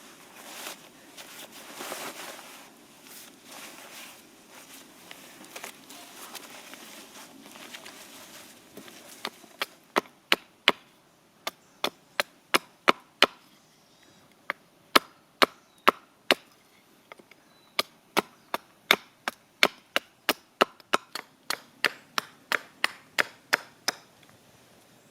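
Firewood being chopped: after a stretch of softer rustling and scraping, sharp wooden strikes start about nine seconds in and come in uneven runs, one or two a second.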